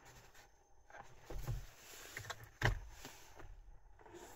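Volkswagen Golf 8 dashboard glovebox being opened by hand: a few soft knocks, a sharp click about two and a half seconds in, and a louder thump at the very end.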